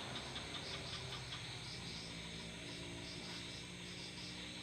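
Crickets chirping in quick, evenly repeated high pulses, over a low steady hum.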